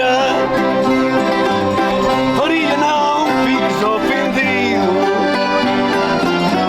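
Live traditional folk music played on string instruments and accordion: a wavering melody line over steady held chords.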